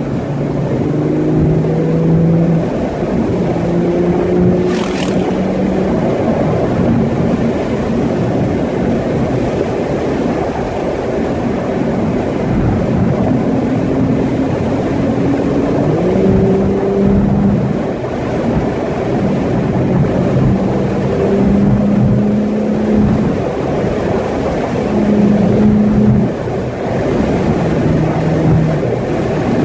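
Car engine and tyre and wind noise heard from inside the cabin while driving, the engine note holding and shifting with the throttle and rising once about halfway through. A brief sharp click about five seconds in.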